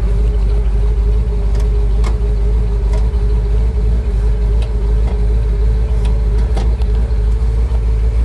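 Chevrolet 409 V8 idling, heard from inside the car, a steady low rumble with a steady hum over it. A few light clicks come as the heater and fan control levers under the dash are moved.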